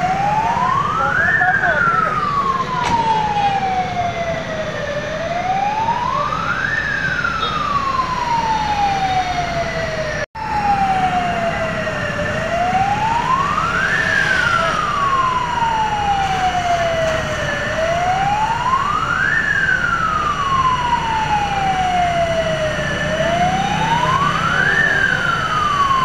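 Fire engine siren wailing in slow cycles: each one climbs quickly and then slides slowly back down, about every five and a half seconds, five times. A steady low rumble runs underneath, and the sound cuts out for an instant about ten seconds in.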